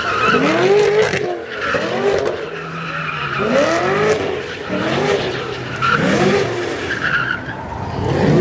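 A car engine revving up and falling back over and over, about once a second, in quick throttle blips of the kind used to break the wheels loose while drifting.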